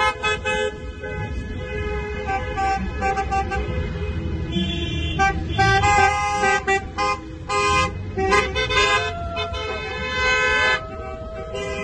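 Car horns honking from a slow-moving convoy of cars: a quick run of short toots at the start, then several longer blasts that overlap, over a steady traffic rumble.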